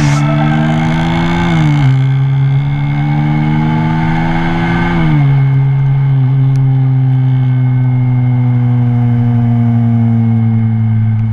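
Bajaj NS200 single-cylinder motorcycle engine running under way, its pitch dropping in steps twice and then holding steady.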